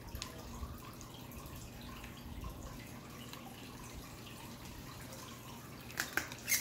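Fingers picking at a spiral-bound book's wrapping and edge: faint scattered crinkles and ticks, with a few sharper clicks about six seconds in.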